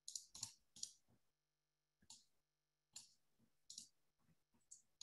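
Near silence broken by several faint, short clicks at irregular intervals, roughly one or two a second.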